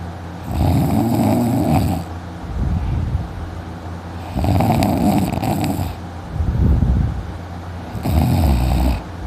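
A man snoring loudly in his sleep: three loud snores, one about every three and a half seconds, with softer breathing between them.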